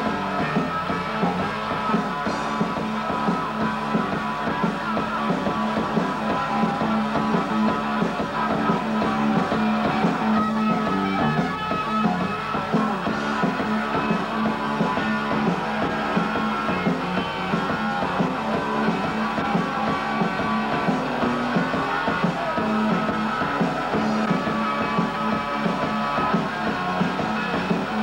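Live rock band playing, electric guitar and drum kit, as an instrumental passage with no singing.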